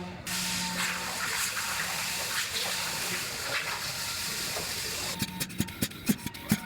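A steady, loud hiss of rushing air or spray starts abruptly and runs for about five seconds. A run of sharp, evenly spaced clicks follows near the end.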